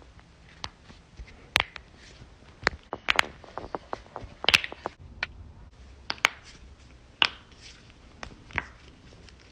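Knuckles cracking: a string of sharp pops at irregular intervals, with a quick run of smaller clicks just before the loudest pop about halfway through.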